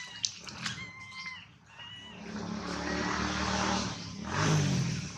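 A motor vehicle passes. Its engine hum and road noise build from about two seconds in and are loudest about four and a half seconds in. Before it, in the first two seconds, come a few short high squeaks.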